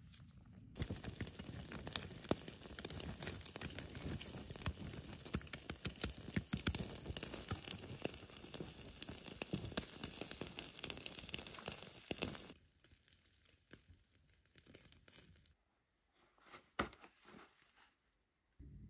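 Ember fire crackling under a rack of beef ribs on a grate of bones: dense, fine crackles. About twelve and a half seconds in it cuts to much quieter, with a few scattered clicks and one louder knock.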